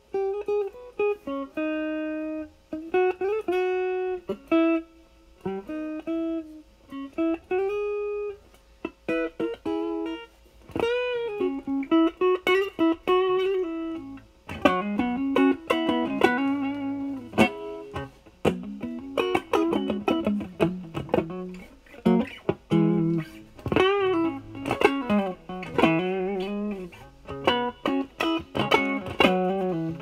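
Stratocaster-type electric guitar with single-coil pickups through a 1986 Pro Co Rat2 distortion pedal (LM308N chip), distortion knob near eight o'clock for low gain, into a Marshall Valvestate amp's clean channel. It plays single-note lead lines with bends and vibrato: held notes with gaps at first, then quicker runs from about halfway.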